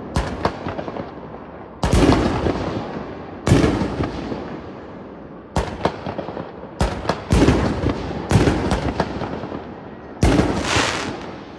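RDX Explosion 1.75-inch preloaded single-shot mortar shells being fired one after another. About eight sharp bangs from launches and shell bursts come every second or two, each fading away in an echoing tail.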